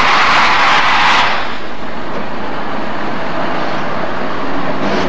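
Steam locomotive venting steam with a loud hiss that dies away about a second in, leaving the steady low rumble of the standing train.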